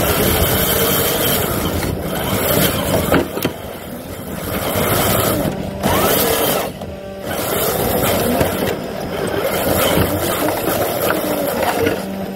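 Traxxas TRX-4 RC crawler's small electric motor and alloy gearbox whining, the pitch rising and falling with the throttle, with a steady mechanical hum underneath.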